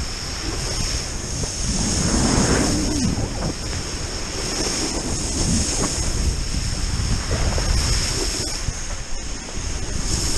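Wind buffeting a GoPro's microphone, mixed with the rush and spray of a wakeboard cutting across lake water at speed.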